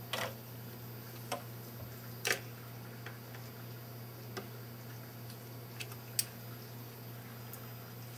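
A few separate light clicks and taps, about six spread over several seconds with the loudest about two seconds in, from hands working on a 3D printer's print bed and its leveling screws. A steady low hum runs underneath.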